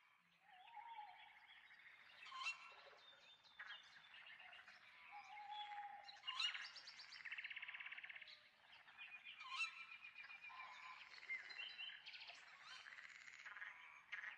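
Faint chorus of birds singing and chirping, many short calls overlapping, with a fast trill about halfway through.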